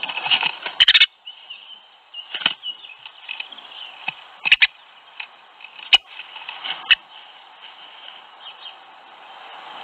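Blue tit moving about inside a wooden nest box: sharp knocks and scrapes of its feet on the wood, a few seconds apart, as it comes in and settles on the nest, over a faint hiss.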